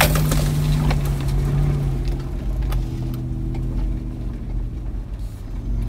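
Off-road 4x4's engine heard from inside the cabin while driving a rough dirt track, a steady low note that drops in pitch about two seconds in as the driver eases off. A few short knocks and rattles come through from the rough ground.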